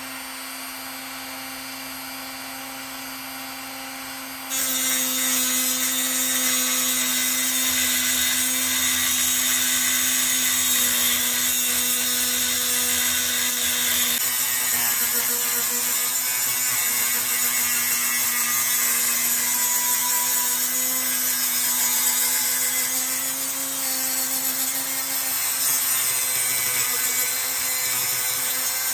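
Dremel rotary tool with a cutoff wheel, its motor whining steadily. About four and a half seconds in, the wheel bites into a steel 3/8-inch fine-thread bolt held in a vise, and a loud abrasive grinding of metal being cut carries on from there, rising and dipping a little as the cut goes.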